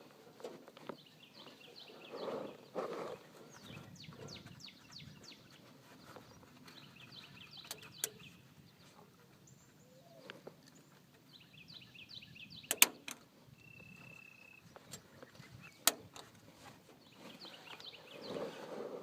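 Animal chirps in short, rapid trains, with two sharp clicks in the second half and muffled rustling knocks near the start and the end.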